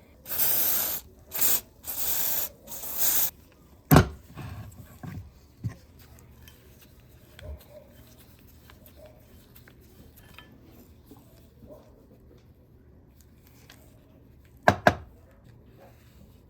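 Several short hissing bursts from an aerosol spray can in the first three seconds, followed by a single sharp knock, then quiet with two quick clicks near the end.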